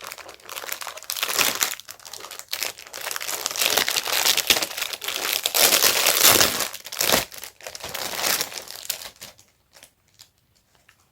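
Packaging crinkling and rustling as a purchased item is unwrapped by hand, dense and continuous, loudest in the middle, thinning to a few soft clicks near the end.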